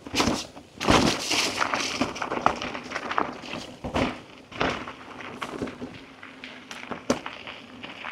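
Mountain bike rolling over a rough dirt trail: tyre noise with irregular knocks and rattles from the bike.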